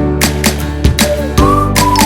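Background music with a steady beat, held bass notes and a high melody line that slides between notes.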